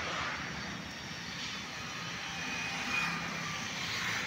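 Steady engine rumble that swells slightly about three seconds in.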